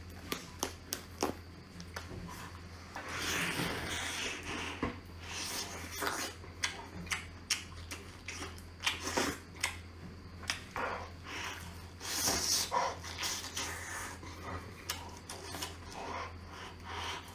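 Close-up eating sounds of a person working through lobster: irregular clicks, crackles and crunches of chewing and handling shell, with a couple of longer breathy or slurping stretches. A low steady hum runs underneath.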